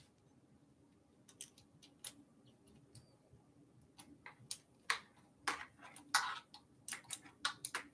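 Faint, irregular clicks and ticks from a small hex key working the bolts of a plastic handlebar display mount. The clicks are sparse at first and come more often in the second half.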